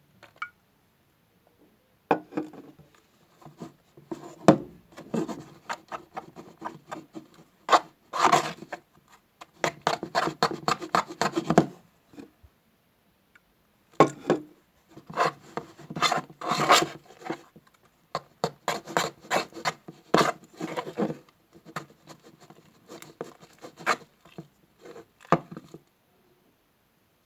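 A spoon stirring thick slime of PVA glue and shaving foam in a bowl, scraping and rubbing in quick irregular strokes, with a pause of about two seconds midway. The borax water is being worked in to activate the slime.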